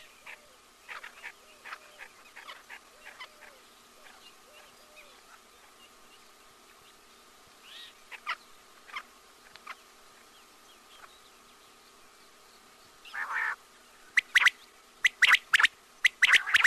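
Recorded quail calls: short, sharp call notes, soft and scattered at first, then a louder call about thirteen seconds in and loud calls in quick groups of two or three near the end, over a faint steady hum.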